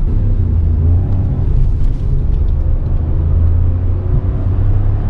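Hyundai i20's 1.0-litre turbo petrol engine and tyres as the car drives, a steady low drone.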